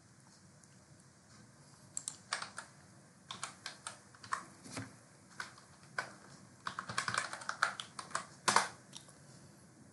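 Computer keyboard typing: a run of irregular keystrokes starting about two seconds in, with the loudest stroke near the end.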